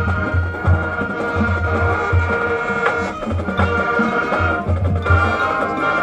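High school marching band playing its field show: held brass chords over a pulsing low end of drums and low brass.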